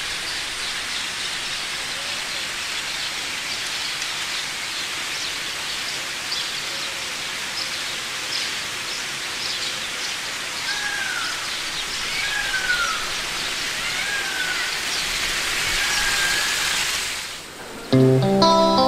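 Steady park ambience with a hiss like running water and small birds chirping; a bird gives four repeated sliding calls from about 11 to 16 seconds in. Near the end the ambience cuts off and acoustic guitar music starts.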